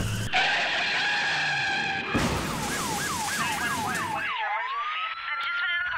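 A sustained screech with a steady high pitch for about two seconds, then an emergency vehicle siren: a fast yelp of about four sweeps a second, changing a little past four seconds in to a slow rising wail.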